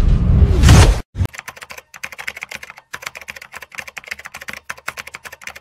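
A loud, deep boom sound effect that swells and cuts off about a second in. Then comes a fast, irregular run of keyboard typing clicks, several per second, from a typing sound effect laid under the animated title text.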